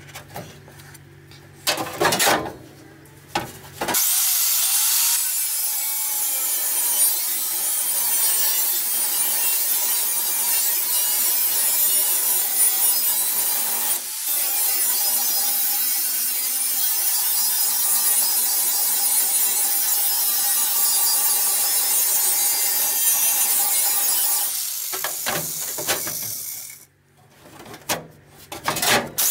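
Corded handheld rotary tool with a cut-off wheel cutting the edge of a sheet-steel floor patch panel: a steady, loud, high-pitched grinding with the motor's whine in it. It starts a few seconds in, after a few sharp knocks, and stops a few seconds before the end.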